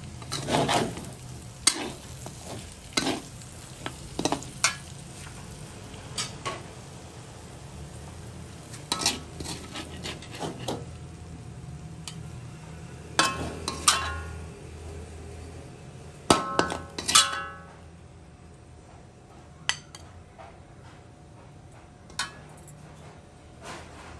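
Metal spatula scraping and clanking against an aluminium wok in irregular strokes as stir-fried beef is tossed and then scooped out onto a plate. It grows quieter in the last several seconds, with only a few light clinks.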